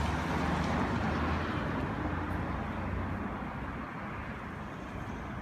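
A motor vehicle engine running with a steady low hum and a hiss of outdoor noise, both fading over the first few seconds.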